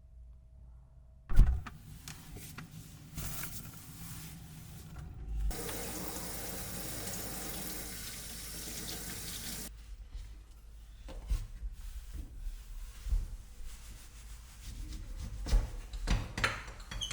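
Running water, switched on and off abruptly, for about four seconds in the middle, with scattered knocks and clicks around it and a sharp knock just after the start.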